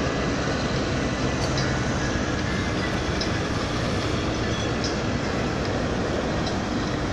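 Scania K410 double-decker coach approaching along the road: a steady rumble of engine and tyre noise.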